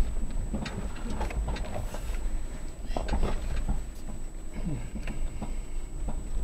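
A vehicle towing a small camping trailer creeps over rough, rocky dirt, heard from inside the cab: a steady low rumble with irregular clicks, knocks and rattles as the wheels roll over rocks. A faint steady high-pitched whine runs underneath.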